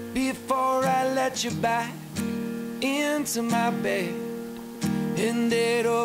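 Background music: a country-style song with strummed acoustic guitar.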